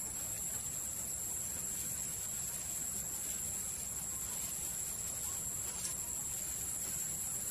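Steady, high-pitched insect chorus: an unbroken shrill drone of crickets or similar insects, with a faint low rumble beneath.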